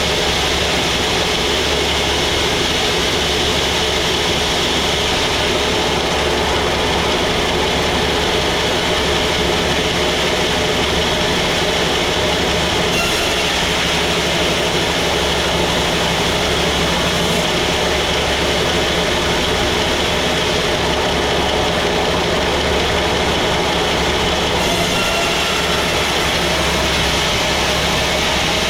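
Sawmill saw machinery running steadily: a loud, even mechanical drone with a constant hum.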